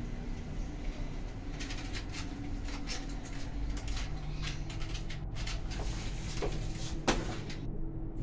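Otis Gen2 machine-room-less traction elevator car travelling in its shaft, heard from inside the car: a steady low hum with light clicks and rattles, and a sharper click about seven seconds in.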